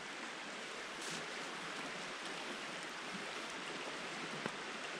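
Steady rush of flowing creek water, with a couple of faint clicks, about a second in and near the end.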